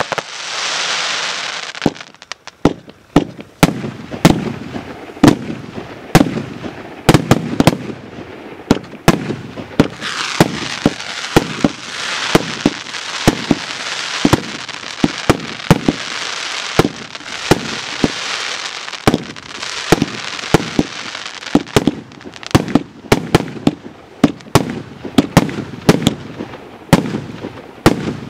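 A Joker Fireworks JF VIP5 "Generalsky" 232-shot fireworks battery (1 to 2 inch calibre) firing a rapid, irregular string of sharp shots and bursts, about two a second. Through long stretches, a dense crackling hiss from crackling-star effects runs between the shots.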